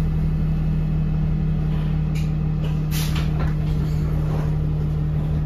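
Cabin sound inside an ENC EZ Rider II transit bus: a steady hum from the bus's machinery over a low rumble, with a brief hiss about three seconds in.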